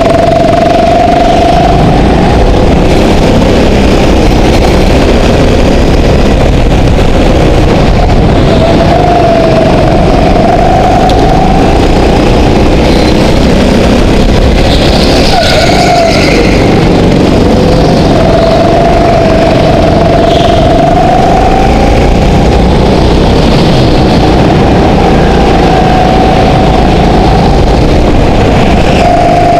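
Go-kart engine running hard throughout, loud, its pitch climbing along each straight and dropping into the corners, several times over.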